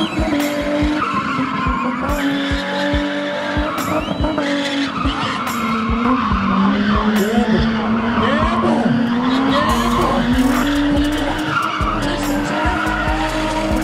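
BMW E30 spinning: engine held at high revs with the tyres screeching. The revs dip briefly midway and climb back.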